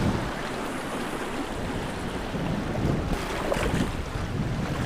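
Wind on the microphone over small waves washing against jetty rocks.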